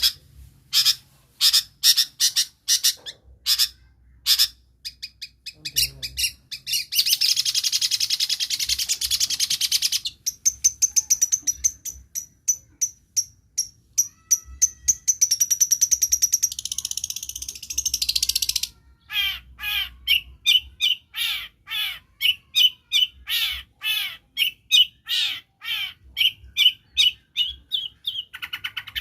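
Long-tailed shrike (cendet) singing a varied, mimicking song. It opens with sharp separate chirps, runs into a fast continuous trill for about ten seconds, then changes to quick downslurred notes repeated two or three times a second.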